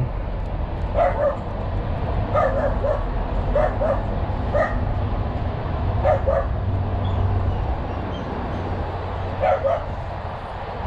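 A dog barking in short yips, often in quick pairs, on and off, over a steady low hum.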